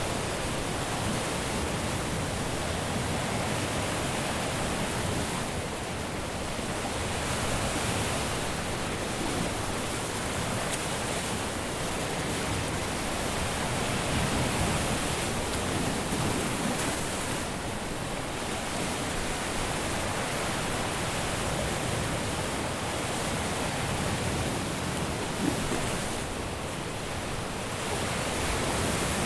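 Caribbean surf washing onto a beach: a continuous hiss of breaking waves that swells and eases every few seconds.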